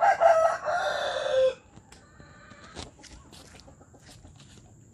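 A rooster crowing once, a loud drawn-out call that ends in a falling note about a second and a half in; after it, only faint scattered clicks over a faint steady high tone.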